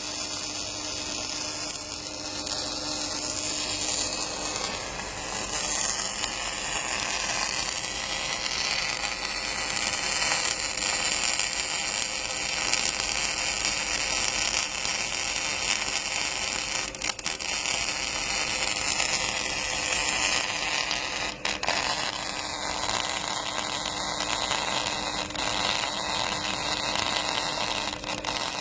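MIG welding arc from a KF350A welder, a steady crackling hiss as a bead is laid, with a few brief breaks partway through where the arc stops and restarts.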